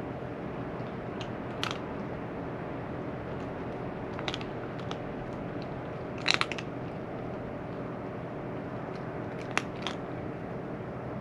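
A cat crunching dry food: a few separate sharp crunches, the loudest a quick cluster about six seconds in, over a steady low hum.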